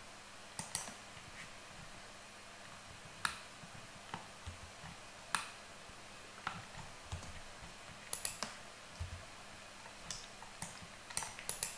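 Faint, scattered clicks of computer keyboard keys and a mouse being pressed: single presses here and there, and two quick runs of several clicks, about eight seconds in and near the end.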